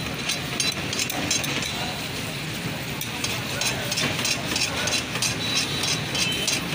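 Chicken karahi sizzling in a steel karahi while a metal ladle stirs and scrapes against the pan, giving quick, irregular clinks and scrapes over the steady sizzle.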